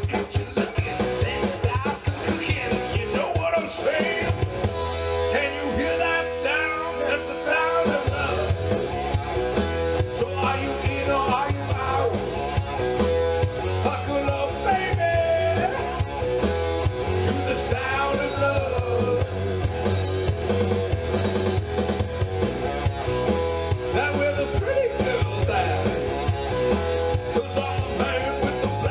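Rock band music: drum kit, electric guitar and bass playing with a steady beat.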